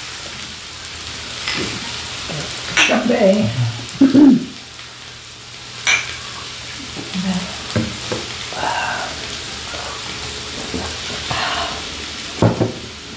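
Thin-sliced beef brisket sizzling steadily on a grill pan over a portable tabletop stove. A single sharp glass clink comes about six seconds in, with a few short bits of voices.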